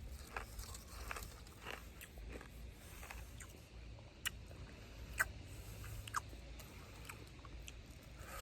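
Faint, irregular clicks and taps of small hard parts being handled, with three sharper clicks around the middle, over a low steady hum.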